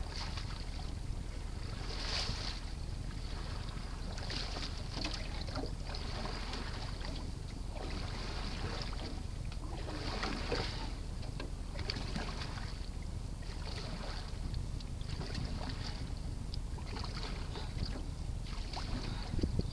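Canoe paddle strokes in the water: a series of short splashes, roughly one every one to two seconds, over a steady low rumble of wind on the microphone.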